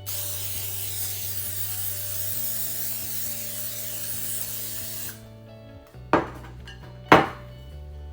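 Aerosol butter cooking spray hissing steadily for about five seconds as baking dishes are greased, then two sharp knocks about a second apart, over background music.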